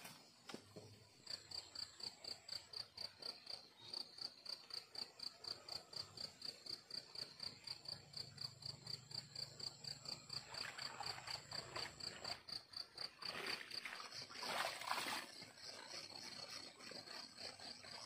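Night insects chirping in a steady high-pitched rhythm of about three pulses a second, over a thinner, higher continuous trill. Two short spells of rustling come in the second half, the louder one near the end.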